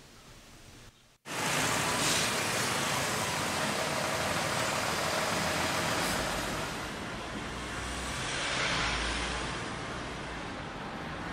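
Road traffic noise: a steady wash of passing vehicles that starts abruptly about a second in, with a low rumble swelling as a heavier vehicle goes by around eight to nine seconds in.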